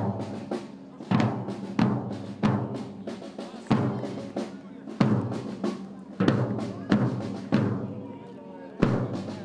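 Parade band drums beating a march, with bass drum and snare strikes about every two-thirds of a second and some steady band notes beneath.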